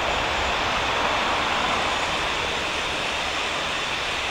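Jet engines of an Airbus A320 rolling out along the runway after landing, heard from a distance as a steady, even rush of noise with a low rumble underneath.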